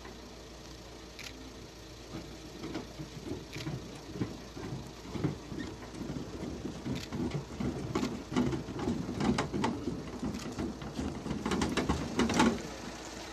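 Footsteps and shuffling of several people coming down a metal boarding stair: irregular thumps and clicks that grow busier, then stop suddenly near the end, over a steady low hum.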